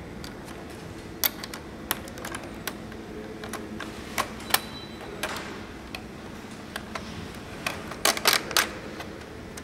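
Irregular light clicks and ticks of wire yarn-weight holders being hooked by hand onto the plastic needles of a Circular Knitic circular knitting machine during cast-on, with a quick run of louder clicks near the end.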